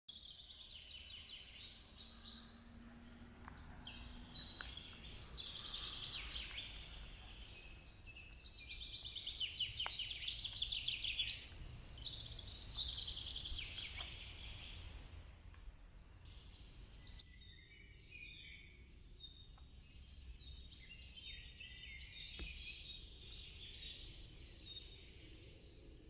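Several songbirds singing together in broadleaf woodland, with dense, overlapping chirps and trills. The song is loud for about the first fifteen seconds, then thins out and grows fainter. A low steady rumble runs underneath.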